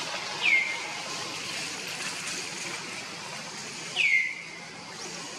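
Two short, high whistled animal calls, each falling quickly in pitch, about three and a half seconds apart, over a steady background hiss.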